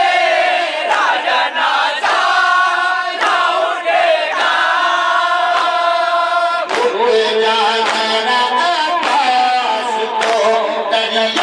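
Group of men chanting a noha (Shia lament) together through microphones, a lead voice carried by the others in long, sustained unison lines. About seven seconds in the tune drops to a lower line.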